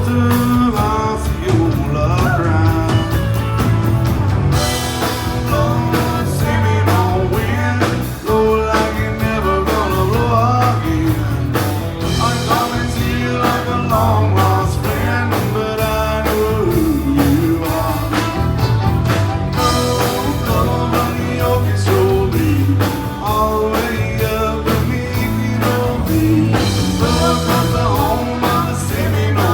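Country-rock band music: electric guitar and a singing voice over a steady bass and drum beat.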